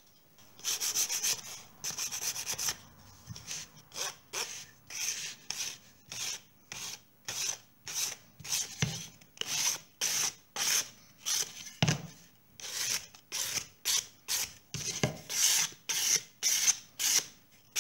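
A small piece of sandpaper rubbed in short quick strokes, about two a second, over the corners of a white-painted picture frame. It scuffs through the white paint to bring the frame's original colour back out for a distressed, shabby look.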